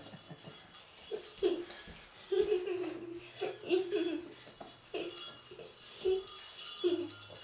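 Small jingle bells on a puppy jingling on and off as it moves and is handled, with soft, short giggles and murmurs from small children.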